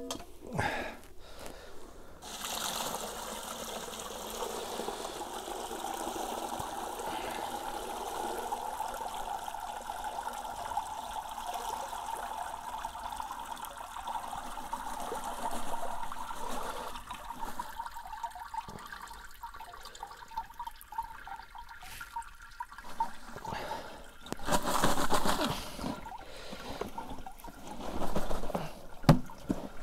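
Worm tea draining through a fine sieve into a bucket as soaked biochar is poured in from a flexible tub: a steady trickle of liquid, with louder pours near the end.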